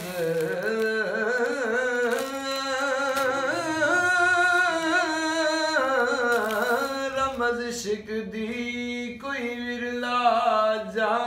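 A man singing long, wavering held notes with ornamented turns, accompanied by a few taps on an upturned metal cooking pot played as a drum.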